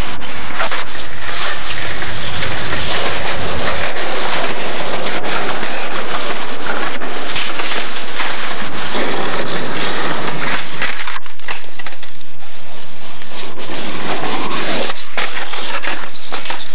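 Skateboards rolling on concrete, with scattered clacks and knocks of boards hitting the ground, all in a loud, rough noise.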